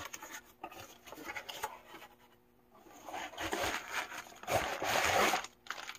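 Handling a cardboard box and sliding a black fabric waterproof bag out of it: rustling and scraping of card and fabric, a few light rustles first, then a denser stretch in the second half.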